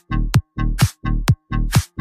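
Electronic dance music with a steady, fast beat.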